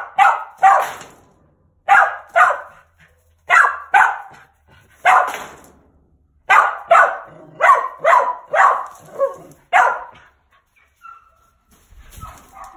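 Mountain feist barking over and over, sharp barks coming in quick runs with short breaks between them, then stopping for the last couple of seconds. A brief low rumble of the phone being handled comes near the end.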